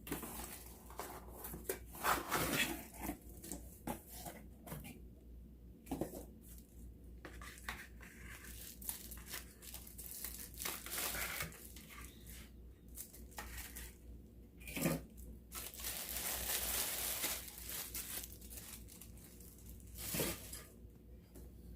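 Packaging being torn open and crinkled by hand as the product is unwrapped, in irregular rustles with a few sharp clicks and knocks of the item being handled, and one longer rustle in the middle.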